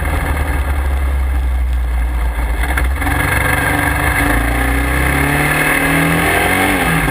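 Off-road vehicle's engine running under way, with wind and road rush on a low-mounted camera. Its note breaks briefly about three seconds in, then climbs as the vehicle speeds up.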